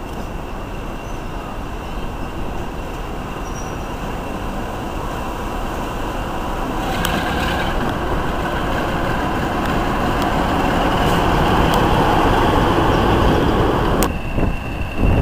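Diesel locomotive hauling a passenger train slowly past, its engine growing steadily louder as it draws near and passes beneath, with a few sharp clicks from the wheels and track. The sound drops away suddenly near the end.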